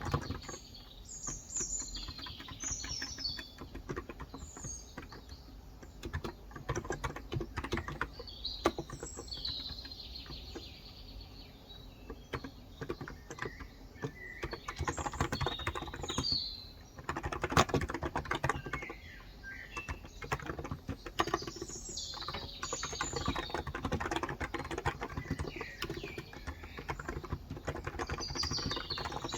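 Steady typing on a Cox Endeavor 35g electrostatic-capacitive (Topre-style, 무접점) tenkeyless keyboard, a continuous run of soft keystrokes. Birds chirp in the background in several short bouts.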